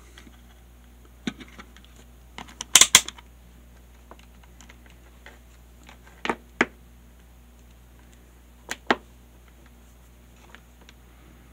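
Scattered sharp clicks and taps of hands handling a plastic meter housing and a digital multimeter on a workbench, the loudest a quick cluster about three seconds in, with pairs of clicks later, over a faint steady low hum.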